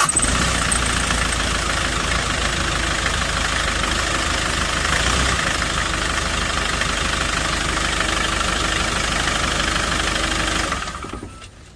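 Hyundai Porter 2 diesel engine idling steadily just after being started, following a fix of a leaking injector washer. It dies away near the end.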